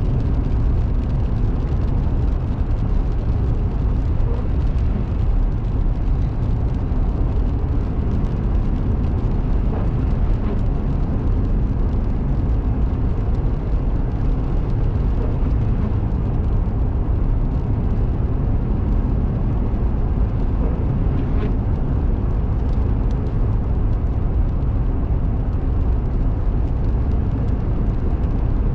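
Steady low rumble of a car driving at road speed, heard from inside the cabin: tyre and engine noise with no change in pace.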